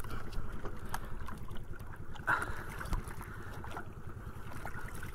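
Small fishing boat's engine running steadily at sea, a low rumble with a steady whine above it, mixed with water and wind noise on the microphone. A brief knock a little past two seconds in.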